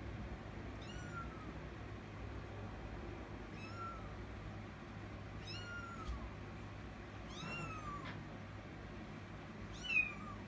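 Kitten meowing: five short, high-pitched mews about two seconds apart, each falling in pitch, the last near the end the loudest.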